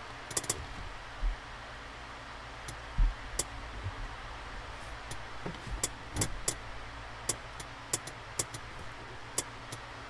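Irregular sharp clicks and a few soft thumps as test-lead probes and wire ends are handled at a car's computer wiring harness, over a steady low hum.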